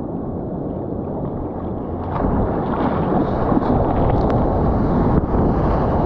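Ocean surf and whitewater rushing around a kayak, with wind buffeting the microphone; the rush grows louder about two seconds in as breaking foam surges over the boat.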